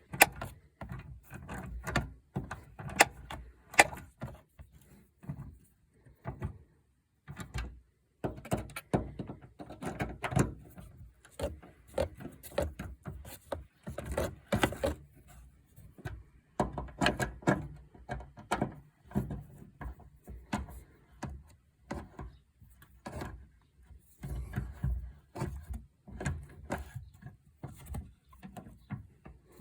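Irregular knocks and clunks, like things being handled, with a brief pause about six seconds in.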